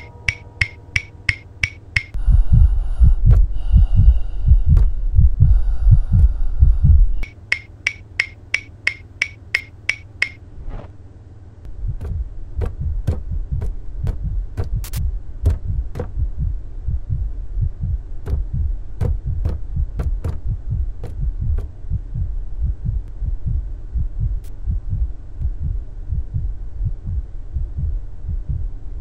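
Eerie film sound design. Sharp ticks come about three a second, broken by a few seconds of loud, deep throbbing. The ticks return, then give way to a low, throbbing hum with scattered clicks.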